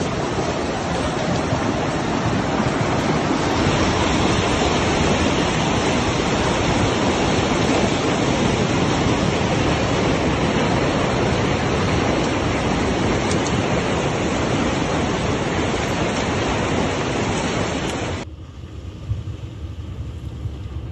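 Flash-flood water rushing down a dry valley: a dense, steady rush of torrent water. About two seconds before the end it cuts abruptly to a quieter, thinner rush.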